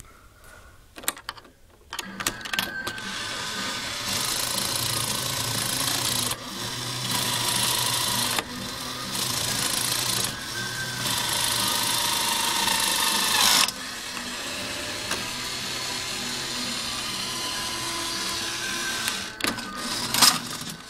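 Toy mini claw machine's small motors whirring as the claw is driven about, in runs that start, stop and change every few seconds as its buttons are pressed. A few clicks come near the start and near the end.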